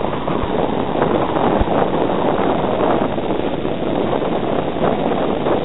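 Wind buffeting the microphone: a steady, dense rushing with a couple of brief low bumps in the first two seconds.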